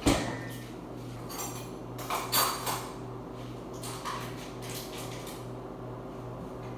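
Dishes and utensils clattering and clinking in a kitchen as food is prepared: a sharp knock right at the start, a cluster of clinks about two seconds in and another about four seconds in, over a steady low hum.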